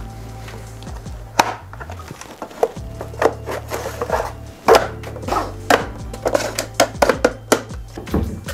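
Hard plastic panels of a desktop shelf organizer knocking and clicking as they are slotted together and a drawer is pushed in: many short, irregular knocks, with background music.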